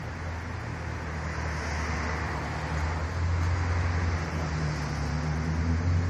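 Ford Shelby GT500's supercharged V8 exhaust giving a deep, steady rumble that grows gradually louder.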